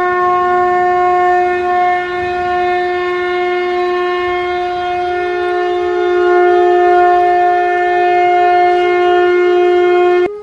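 Conch shell (shankh) blown in one long, steady, loud note. A second, slightly higher note joins about halfway through, and both cut off sharply just before the end.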